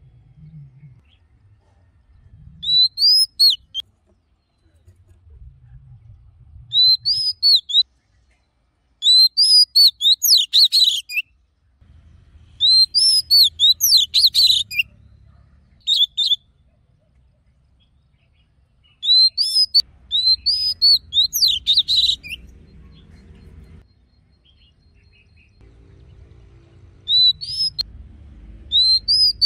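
Oriental magpie-robin singing in the loud, wild-type song of a wild-caught male. It gives about seven bursts of clear, rising and falling whistled notes, each a second or two long, with pauses between them.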